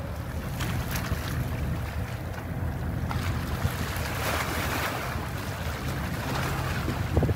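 A boat's engine running with a steady low rumble, with water washing and wind buffeting the microphone; a short thump near the end.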